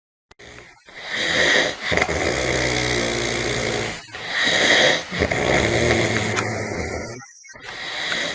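A man snoring loudly: two long snoring breaths of about three seconds each with a low buzz, and a third beginning near the end.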